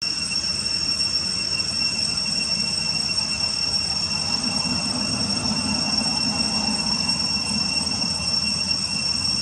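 Steady, high-pitched drone of forest insects, one unbroken tone with no pulsing, over a low background hiss.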